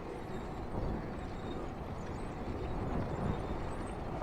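Steady low rumble of wind and road noise while riding a bicycle.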